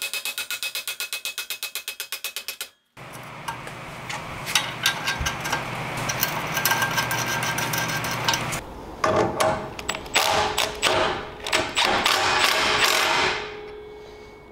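Mini bike assembly work with hand tools on a steel frame and jackshaft. A rapid, even run of clicks cuts off about three seconds in, followed by a steady hum, then a series of metal knocks and clicks that fades near the end.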